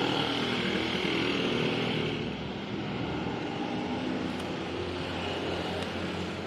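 Sandpaper scraping against a scored motorcycle front brake disc, a steady rasping hiss that eases after about two seconds, as the disc surface is sanded flat. A low engine hum runs underneath.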